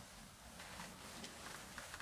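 Quiet room tone with a few faint, short ticks.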